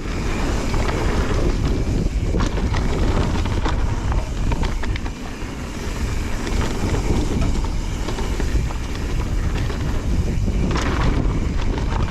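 Mountain bike ridden along a dirt trail: wind buffeting the camera microphone over a steady rumble of tyres on the ground, with frequent clicks and rattles from the bike.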